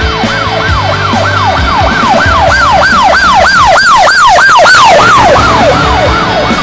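Emergency-vehicle siren in a fast yelp, about three rising-and-falling sweeps a second, growing louder, then fading with its pitch dropping as it passes by. Music plays underneath.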